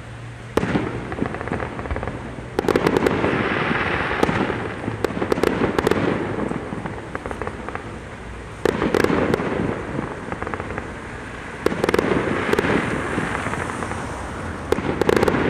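Aerial fireworks going off: a sharp bang about half a second in, then four more loud bursts spaced a few seconds apart, each followed by a few seconds of dense crackling.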